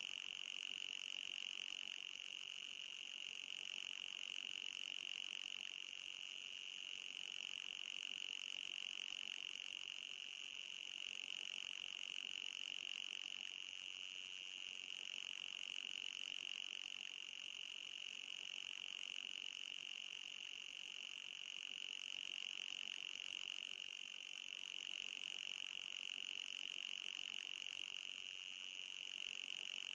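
Anti-mosquito repellent sound: a continuous high-pitched electronic buzzing tone with a fainter, higher overtone, swelling and easing slightly every few seconds.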